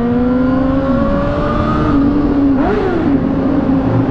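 Honda CBR600RR inline-four sport bike engine pulling under load while riding, its pitch climbing slowly, then briefly rising and dropping again about two and a half seconds in before running steady. Wind rush on the helmet-mounted microphone runs underneath.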